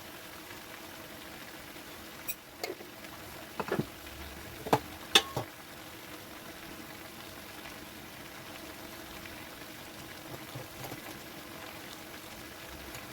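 Pumpkin sabzi cooking in a pan with a steady low sizzle. A spoon knocks against the pan about six times between two and five-and-a-half seconds in.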